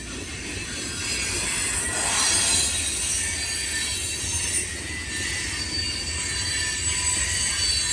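Freight train cars rolling past on the rails: a steady rumble and rattle, with thin high-pitched tones from the wheels running through it.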